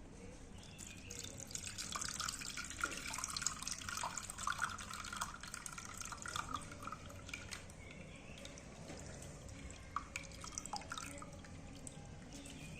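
Water running and dripping, with small splashes and clicks. It is busiest in the first half and thins to scattered drips after that.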